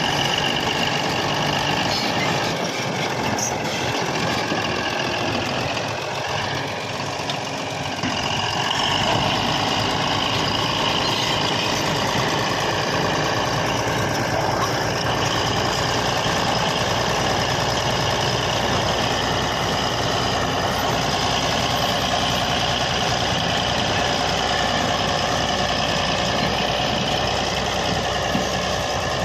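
Komatsu D155A crawler bulldozer's diesel engine running steadily as the machine works. Its pitch wavers in the first few seconds, and the sound grows deeper and fuller about eight seconds in.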